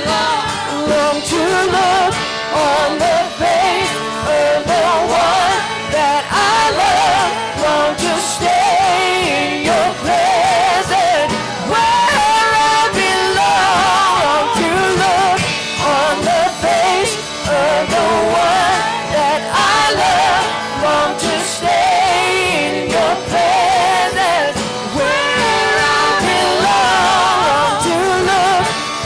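Live church worship music: voices singing wavering melodic lines over a band's steady chords and beat.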